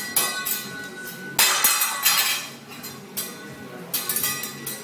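Teppanyaki chef's metal utensils struck against each other and the steel griddle in practice tricks: clusters of sharp metallic clinks, each ringing on briefly, with a long flurry about a second and a half in and more near the end.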